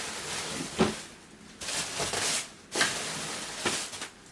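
Irregular rustling and clattering of household objects being handled and moved, with a sharp knock about a second in.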